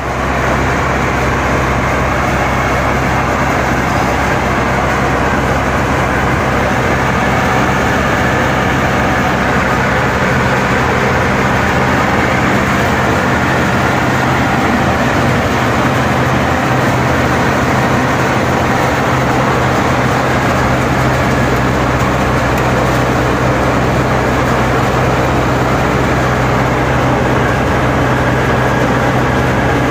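Garlic bulb breaking machine running steadily under load as bulbs are fed through it: a constant low motor hum under a loud, even rattling clatter.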